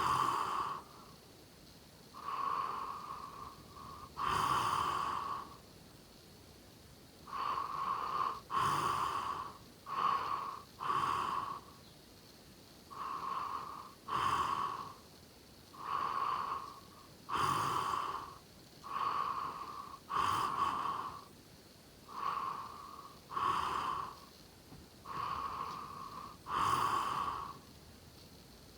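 A sleeping person snoring: short snores about every one to two seconds, some coming in quick pairs.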